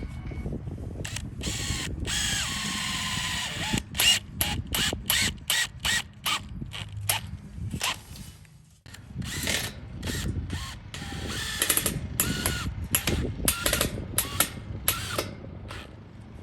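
Power drill-driver driving wood screws into a wooden base. It whirs, then runs in short stop-start bursts, with a brief pause partway through before the next run of bursts.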